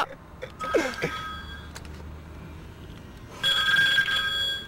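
A steady, high electronic ringing tone, heard faintly early on and then louder for about a second near the end, with a short falling vocal sound near the start.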